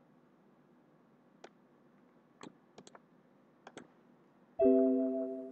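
Several light computer mouse clicks, some in quick pairs, then about four and a half seconds in a sudden chime of several notes sounding together, which fades out over about a second.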